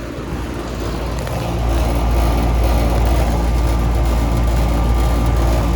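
2012 3-ton Goodman central air conditioner's outdoor condensing unit running: a steady compressor hum and fan noise, with a steady whine, growing louder about a second and a half in.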